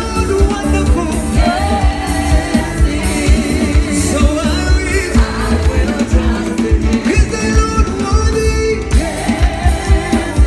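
Gospel worship music: a voice singing over a band with a steady drum beat.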